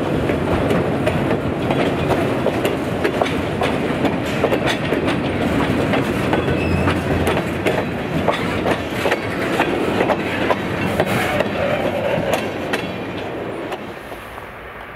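Freight cars rolling past close by, their wheels clicking over the rail joints in an uneven clickety-clack over a steady rumble. About a second before the end the sound drops to a quieter, steady distant rumble.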